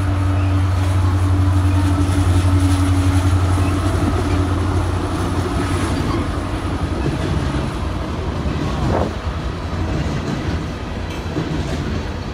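BNSF freight train passing close by: the diesel-electric locomotives' engines give a loud, steady low drone for the first few seconds, then the freight cars rumble and clatter over the rails as the drone fades.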